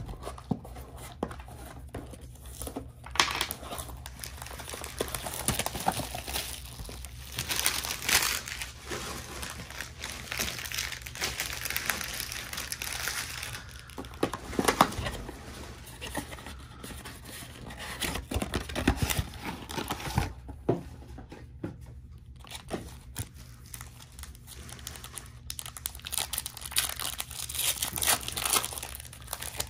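Crinkling and tearing of Panini Prizm trading-card pack wrappers as a mega box is opened and its packs are torn open by hand, with irregular rustles and short crackles throughout.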